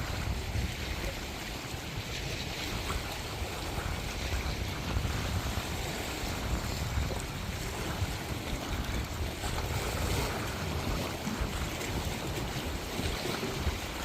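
Sea waves washing steadily onto a shore, with a gusty low rumble of wind on the microphone.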